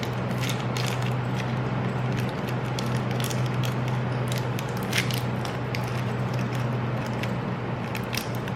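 Plastic wrapper of a mini Kit Kat crinkling and crackling in irregular bursts as it is unwrapped, with one sharper crackle about five seconds in, over a steady low hum.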